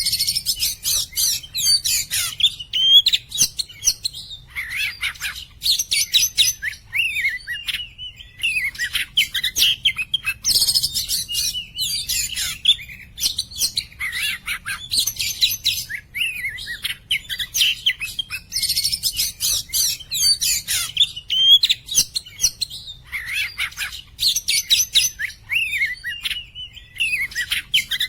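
Oriental magpie-robin of the black-bellied 'poci' form singing non-stop: clear, varied phrases of whistles, rapid trills and chattering notes, broken by short pauses.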